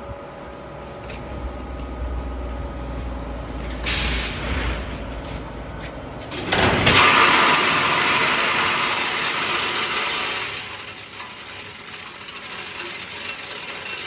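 Pneumatic bag clamp of a walnut bagging machine hissing shut about four seconds in, then a batch of whole walnuts pouring from the weighing hopper into a woven sack, loud for about four seconds and tapering off as the sack fills.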